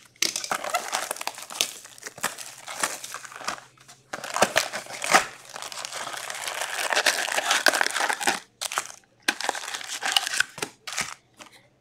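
Upper Deck Allure hockey cards being flipped and slid against each other in the hands: a continuous crinkly rustle with many small sharp clicks, broken by a few short pauses.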